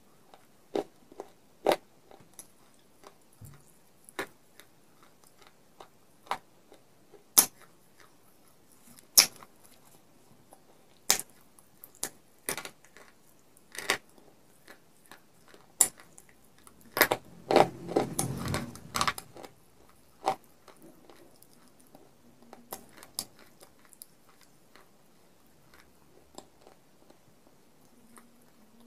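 Sharp crunches of baked clay-pot pieces being bitten and chewed close to the microphone. The single crunches come every second or two, with a denser run of crunching about two-thirds of the way through.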